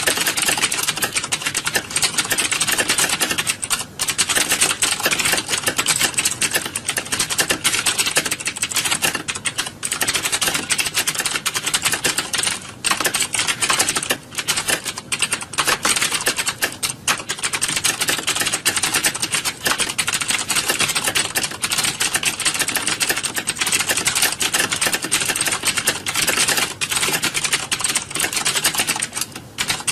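Many computer keyboards being typed on fast at once, as in a typing exam hall: a dense, unbroken clatter of key clicks with only brief lulls.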